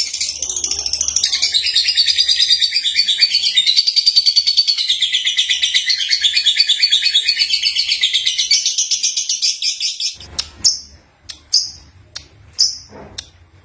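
Young lovebird (Agapornis) singing: a long, rapid, high-pitched chattering warble for about ten seconds, then a few separate sharp chirps.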